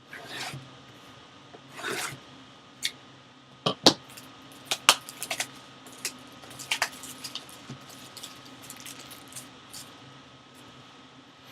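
Handling and opening a sealed box of trading cards: a couple of short rustling scrapes, then a run of sharp clicks and taps, loudest about four to five seconds in.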